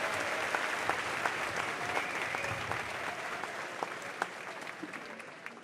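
Large audience applauding, the clapping gradually dying away.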